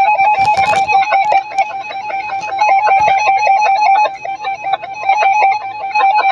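Weather radio alert tone: an electronic beep pulsing rapidly and evenly at one steady pitch, with a brief burst of noise about half a second in.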